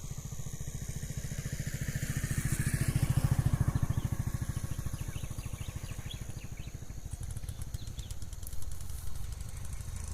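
A small engine running with a rapid, even beat, swelling louder about two to four seconds in and then easing off.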